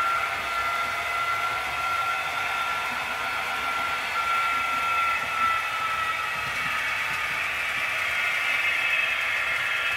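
H0-scale model freight train running on the layout: the small electric motor gives a steady high whine over the rolling noise of wheels on the rails. The whine fades after about six seconds while the rolling noise grows brighter.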